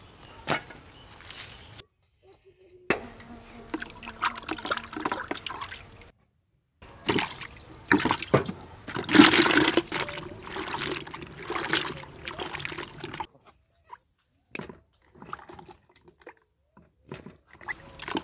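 Water sloshing and splashing in a plastic tub as a hand and a spoon stir cut ash gourd pieces in it, with sharp knocks of the pieces and spoon against the tub. It comes in several short stretches broken by brief gaps, loudest in the middle.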